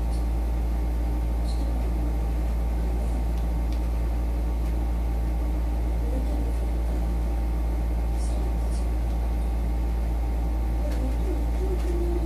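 A steady low background hum, with a faint wavering tone now and then and a few faint short high ticks.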